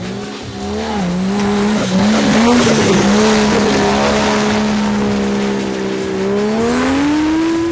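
An off-road 4x4's engine running hard at steady high revs, its pitch climbing near the end as it is revved further, over a steady hiss.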